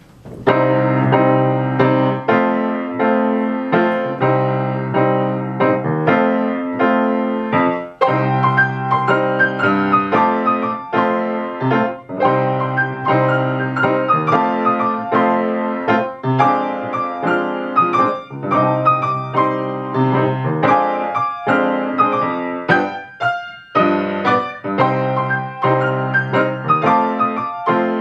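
Grand piano played four hands as a duet: a blues with a repeating figure in the bass under a melody higher up, with a brief break about three-quarters of the way through.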